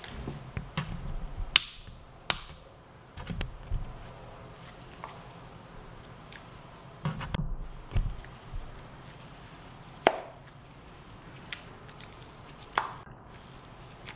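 Thick, textured taffy slime being kneaded and pulled apart by hand. It gives irregular sharp sticky clicks and pops, a few seconds apart, with soft low thuds of handling.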